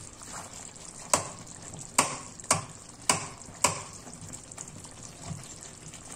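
Metal spatula knocking and scraping against a stainless-steel karahi while pushing and mashing soft tomatoes in the chicken curry, about five sharp knocks over the first four seconds and a softer one near the end, over the low sizzle of the simmering gravy.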